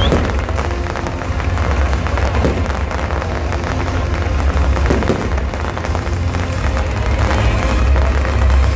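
Fireworks display: a continuous barrage of crackling and bursting shells over a heavy low rumble of booms.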